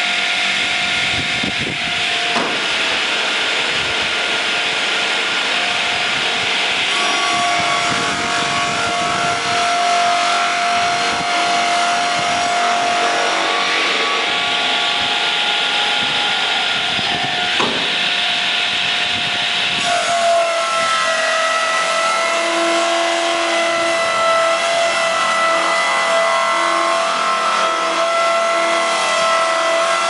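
Donaris swing blade sawmill's circular blade running and cutting along a pine log: a loud, steady whine over the noise of the cut. About twenty seconds in the pitch dips slightly and the tone changes.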